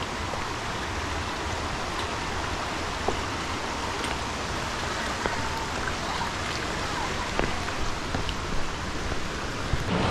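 Steady rush of a waterfall and its stream, with a few light knocks.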